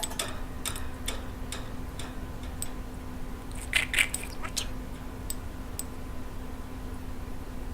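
Budgerigar making small irregular clicks and ticks, with a short, louder chirp about four seconds in, over a steady low room hum.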